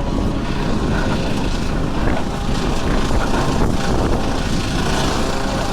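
Wind buffeting a small action-camera microphone: a loud, steady rumble of noise with the most weight in the low end.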